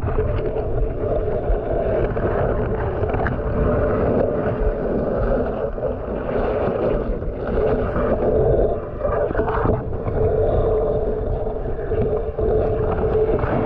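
Muffled, steady underwater rumble and water noise picked up by a submerged GoPro, with a steady low hum running through it.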